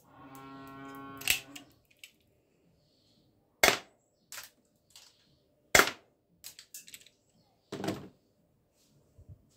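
Spring-loaded toy pistol giving four loud, sharp snaps about two seconds apart, with lighter clicks from handling and cocking in between. A steady low tone sounds under the first snap and stops soon after it.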